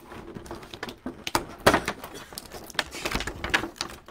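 Stiff clear plastic packaging crinkling and crackling irregularly as it is handled to free a figure, with the sharpest cracks a little under two seconds in.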